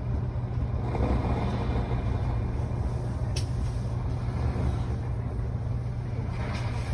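Steady low rumble of a high-speed passenger elevator cab in motion, heard from inside the cab, with a single sharp click about three and a half seconds in.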